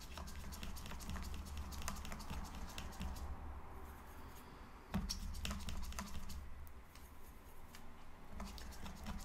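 A wet watercolour brush working paint in a plastic pan set and mixing palette: soft scrubbing with many small irregular clicks and taps, and one sharper knock about five seconds in.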